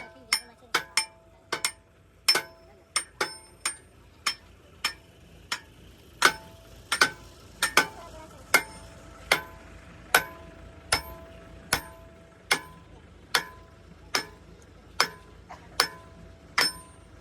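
Hammer blows on steel, struck steadily about once a second, each ringing briefly with a metallic tone.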